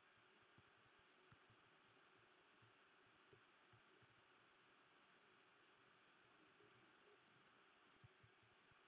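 Near silence with faint, irregular computer mouse clicks as curve points are placed one by one.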